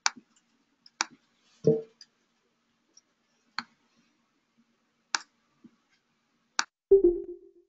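Isolated sharp computer mouse clicks on a conference-call line, five or six of them a second or more apart, while the host works the webinar's mute controls. A short low hum comes about a second and a half in, and a louder low thump with a brief hum comes near the end; the thump is the loudest sound.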